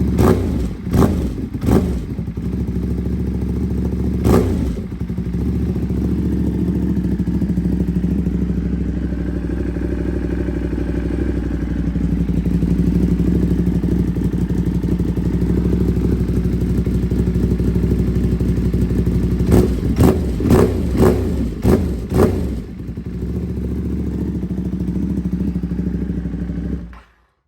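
Ducati Panigale V2's 955 cc Superquadro V-twin with an aftermarket Vandemon exhaust idling, with sharp throttle blips a few times near the start and a quick run of blips around two-thirds through. The sound cuts off suddenly near the end.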